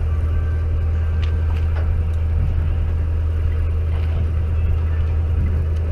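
Party boat's engine running with a steady low drone, and a few faint ticks on top.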